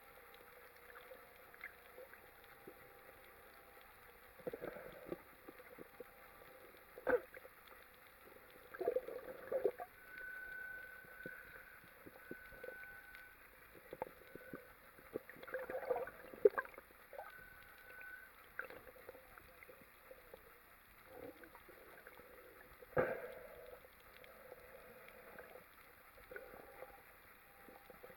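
Underwater sound heard through a camera housing: bursts of bubbling gurgle every few seconds over a faint steady hum, with scattered sharp clicks. A thin high tone comes and goes in the middle.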